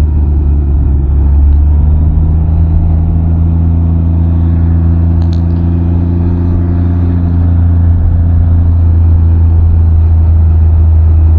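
Can-Am Ryker three-wheeler cruising at a steady road speed of about 27 mph: an even, deep engine drone mixed with road and wind noise, with no change in revs.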